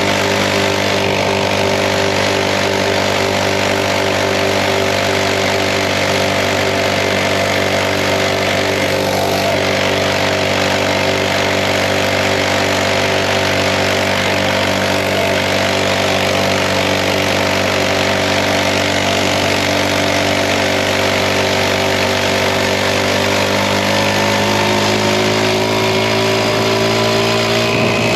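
Mini bike's small engine running steadily under load while being ridden, its pitch rising slightly near the end.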